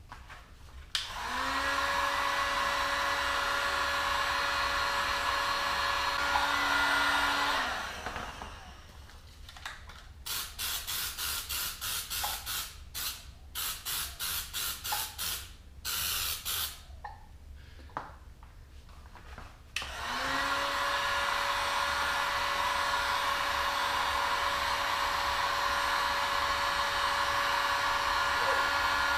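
Electric heat gun switched on about a second in, its fan settling to a steady whine, then switched off after about six seconds. It is drying a coat of aerosol 1K primer. From about ten seconds in comes a run of short hisses from the aerosol primer can as it is sprayed in quick bursts. Near twenty seconds in the heat gun starts again, rising to the same steady whine to flash off the fresh coat.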